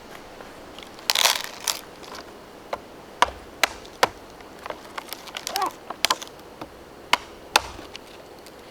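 Fixed-blade D2 steel knife working wood: a short scraping cut about a second in, then a string of sharp, irregular cracks and clicks.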